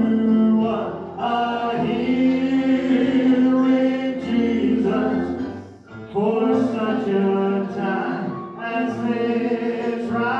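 Worship singing in church: several voices singing a gospel song together, with a short break about six seconds in.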